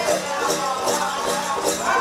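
Powwow drum group singing in chorus over a steady drumbeat, about two beats a second, accompanying a grass dance.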